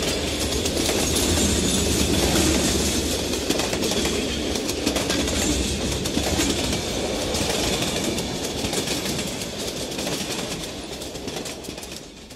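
Train running on the rails, a steady rumble with irregular clicks from the wheels. It fades out over the last few seconds.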